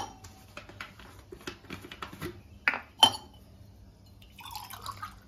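Light ticks and taps of steel kitchenware on a stovetop, with two sharper metal clinks about two and a half and three seconds in, and a short soft noise near the end.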